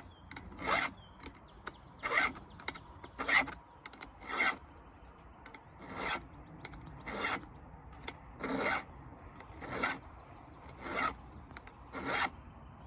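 Hand file rasping down a chainsaw chain's raker (depth gauge): about ten slow, even strokes, roughly one a second, taking a little off the raker.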